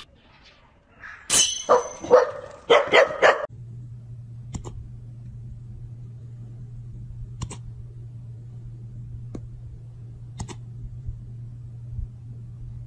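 A dog barking several short, sharp times in the first few seconds, then a steady low hum with a few faint clicks.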